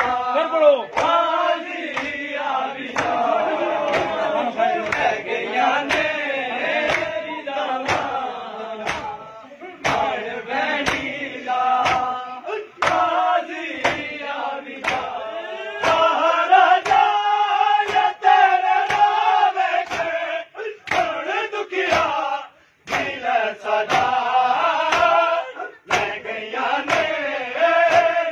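Men's voices chanting a noha together over rhythmic matam, open hands striking bare chests in unison. The strokes come a little faster than one a second.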